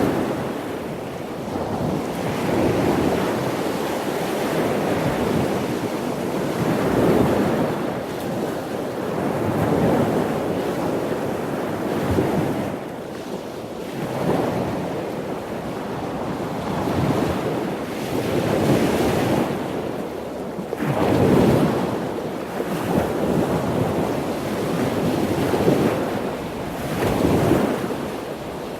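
Ocean waves breaking on a shore, a continuous wash of surf that swells and falls back every few seconds.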